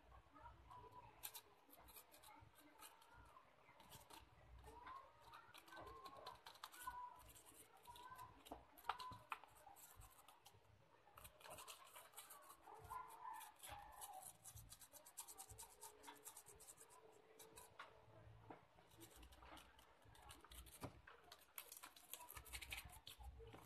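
Near silence, with faint short chirping calls, mostly in the first half, and a few scattered light clicks.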